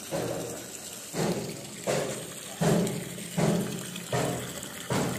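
Water sloshing and splashing in a tub in repeated surges, about one every three quarters of a second, as a pressurised car air-conditioning compressor is dipped and moved about in it during a submersion leak test.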